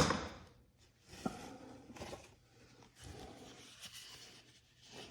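A sharp knock as an object is set down, then quiet rustling and small knocks as items are handled and taken out of a toolbox drawer.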